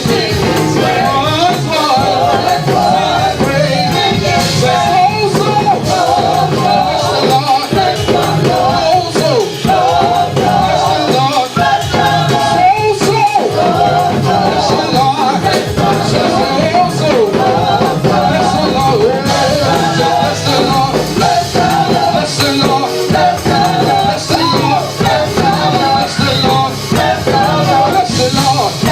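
Live gospel praise music with singing, playing loud and steady.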